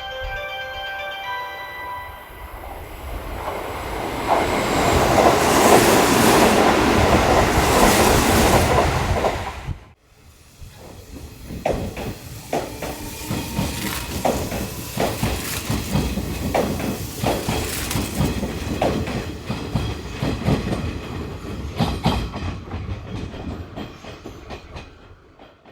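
Hanshin electric train running past the platform, its rumble building to a loud rush. After an abrupt cut about ten seconds in, a train runs by with a steady clatter of wheels over the rail joints and a faint rising motor whine.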